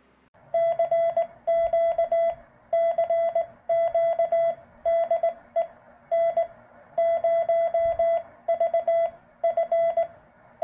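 Morse code sent by hand on a 3D-printed key and heard as the transceiver's CW sidetone: a single steady mid-pitched beep keyed on and off in quick dots and dashes, in groups with short pauses between them.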